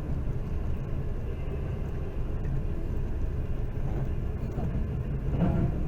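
Pakistan Railways passenger train running, a steady low rumble of the carriage and wheels on the track.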